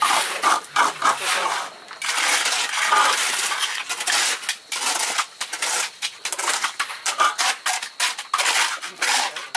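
Metal shovels scraping and scooping through concrete mix by hand, in many irregular strokes with a few longer scrapes.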